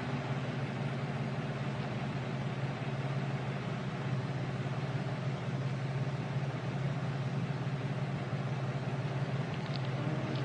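Intercity motor coach's diesel engine idling: a steady low hum under an even hiss.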